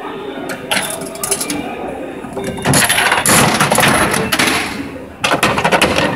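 Coins clicking into the slot of a capsule-toy (gashapon) vending machine. Then its dial is turned with a loud clatter for about two seconds as the capsule is dispensed, and a few clunks follow near the end.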